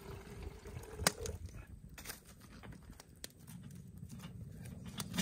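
Split firewood knocking against a steel campfire ring as pieces are laid on the fire: a few sharp knocks, over a low steady rumble. A brief steady pouring sound at the start stops about a second in.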